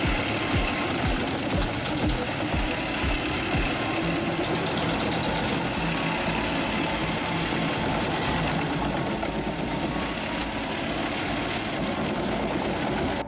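Heavy machine's engine running steadily amid dense mechanical noise, cutting off suddenly at the end.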